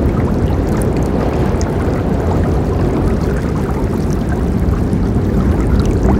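Forest river flowing: a steady, deep rush of water with small splashes scattered through it.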